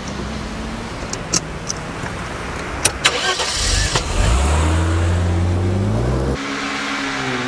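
Car engine running and accelerating, its pitch rising twice, with several sharp clicks in the middle. Near the end it gives way abruptly to a steady hum.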